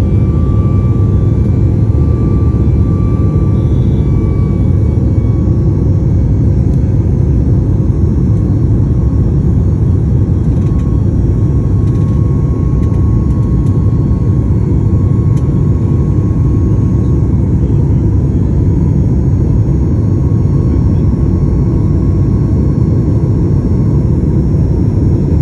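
Boeing airliner's jet engines at take-off, a loud, steady rumble with a faint high whine running over it.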